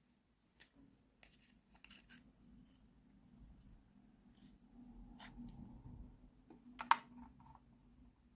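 Faint, scattered clicks and taps of small plastic toy pieces being handled, with soft rubbing in the middle and one sharper click about seven seconds in.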